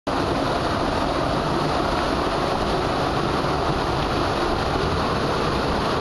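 Water from a pool waterfall pouring down close to the microphone and splashing into the pool: a loud, steady rush.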